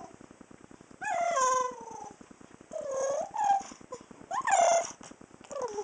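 Dog whining in short, high calls that slide down in pitch, four of them with short gaps between.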